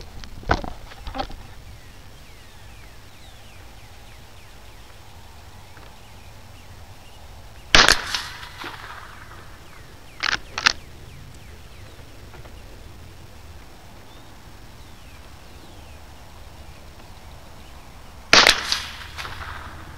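Two rifle shots about ten seconds apart, each a sharp crack with a short echo. A couple of seconds after the first shot comes a pair of quick sharp clicks.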